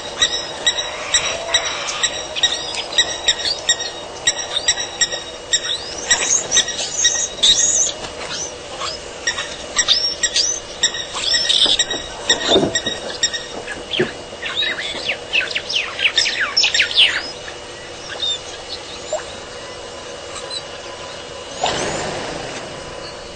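Wild birds chirping and calling in a busy chorus, with runs of quick down-slurred whistles around the middle, over a faint steady hum. Near the end the calling thins out and there is a brief rush of noise.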